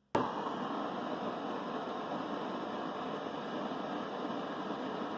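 Electric hot-air blower running steadily with an even rushing noise, cutting in abruptly at the start. It is blowing hot air on sealing putty to soften it.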